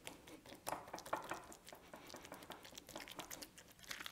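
A fork mashing and stirring chunky guacamole (avocado) in a glass bowl: faint, irregular soft squishing with light clicks of the fork.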